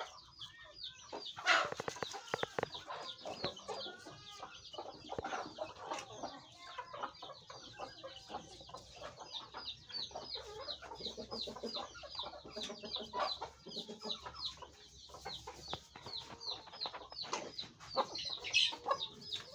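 Chickens clucking in a flock of gamecocks and hens, over a near-continuous string of short, high, falling chirps, about three or four a second. A louder call comes about a second and a half in.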